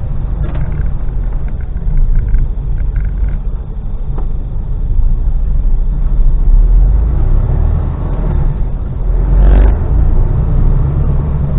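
Mercedes Actros lorry's diesel engine and road noise heard from inside the cab while driving, a steady low rumble.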